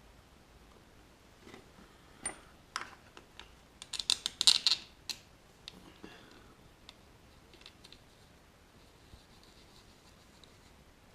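Hand tools and small metal engine parts clicking and tapping during motorcycle crankcase assembly: scattered sharp clicks, with a quick run of them about four seconds in.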